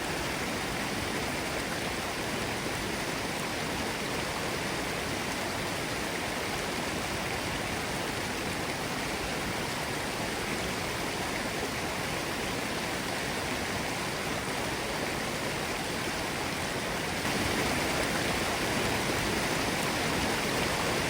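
Forest stream running over rocks: a steady rush of water that gets a little louder about three-quarters of the way through.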